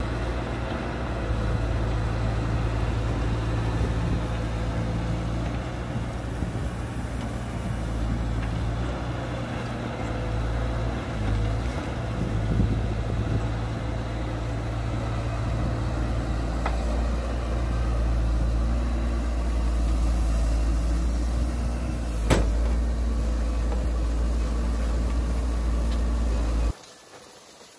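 Hydraulic excavator's diesel engine running steadily as the machine digs and swings its bucket, with one sharp knock about three-quarters of the way through. The engine sound stops suddenly about a second before the end.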